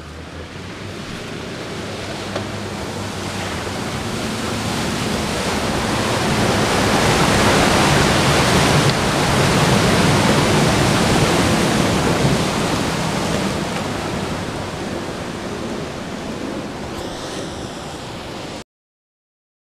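Off-road 4x4 Jeep driving past through a muddy, waterlogged track: engine running under its tyres churning and splashing mud and water. It grows louder as it nears, peaks as it passes and fades away, then the sound cuts off suddenly near the end.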